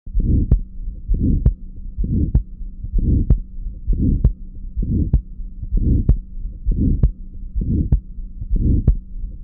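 Recorded heart sounds with a harsh systolic murmur, about one beat a second: each beat is a rough noisy rush ending in a sharp click, over a faint steady hum.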